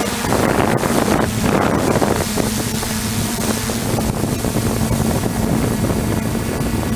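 DJI Flame Wheel 450 quadcopter's electric motors and propellers running steadily, heard through the onboard camera, with wind buffeting the microphone, strongest in the first two seconds.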